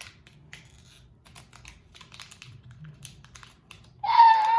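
A blind-bag wrapper being ripped open and crinkled by hand: a run of small crackles and ticks. About four seconds in, a high-pitched voice cries out loudly and holds for about a second.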